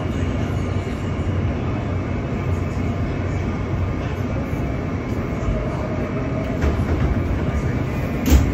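R160B subway train running between stations with a steady rumble of wheels on rail, and a single sharp clack shortly before the end.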